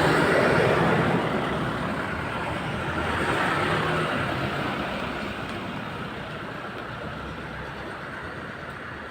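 A heavy vehicle's engine running loud and then fading away as it moves off, with a brief swell about three seconds in.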